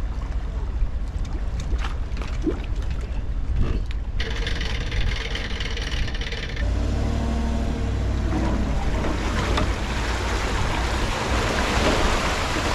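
A boat being loaded onto its trailer at a ramp. A low engine rumble comes in about six and a half seconds in, and water splashing and churning around the hull grows louder toward the end.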